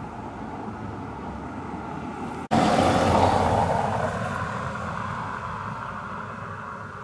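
Street traffic noise: a steady hum, then after a brief dropout about two and a half seconds in, a much louder vehicle sound that comes in abruptly and slowly fades.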